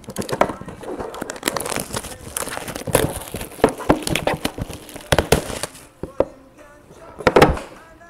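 Trading-card packaging being torn open by hand: plastic wrap and cardboard crinkling and crackling in quick, dense rustles, with one louder knock near the end.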